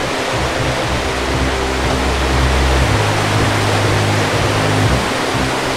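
River rapids rushing over rocks, a loud steady rush of water, under background music of held low notes that shift every second or two.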